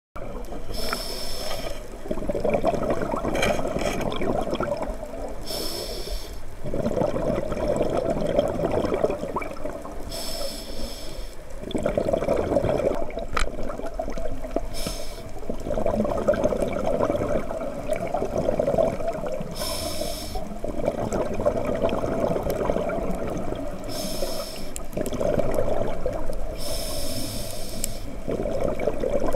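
Scuba diver breathing through a regulator heard underwater: a short hiss of inhalation, then a longer gurgling rush of exhaled bubbles, repeating about every four to five seconds.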